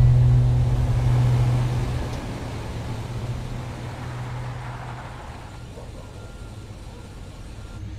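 A full-size SUV driving slowly away down a street, its engine and tyre noise fading as it goes. A low music drone dies out about two seconds in.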